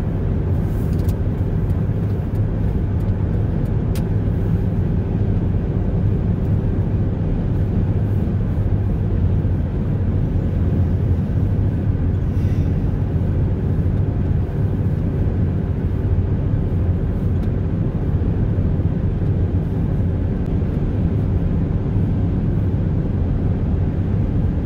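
Steady road and engine noise inside a vehicle cabin while cruising on a highway: a constant low rumble with a faint steady hum above it.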